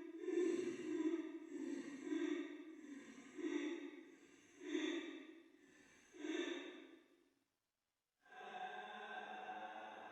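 A woman's voice weeping in a series of drawn-out sobbing swells, about one a second, which die away about seven seconds in. After a short silence a steady drone of several held tones begins.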